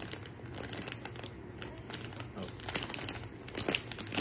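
Crinkly popcorn snack bag rustling and crackling as it is gripped at the top and pulled open by hand, with irregular crackles and a few louder ones near the end.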